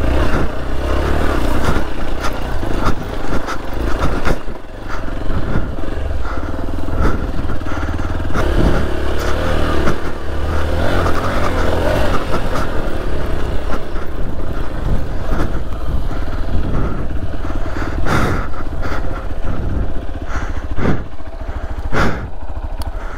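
Motorcycle engine running as the bike rides a rough, rocky off-road trail, with the clatter and knocks of the bike over stones throughout and a few sharper knocks near the end.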